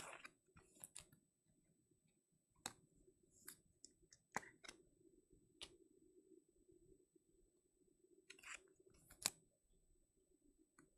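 Faint, scattered clicks and light scrapes of trading cards being handled and slid into rigid plastic toploaders, a short sharp tick every second or so.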